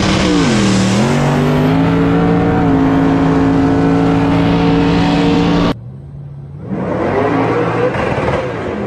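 Dodge Hellcat Redeye's supercharged V8 at full throttle in a street-race launch, heard on board. Its note dips about a second in, then holds steady. It cuts off suddenly partway through and is followed by quieter race engines heard from the roadside.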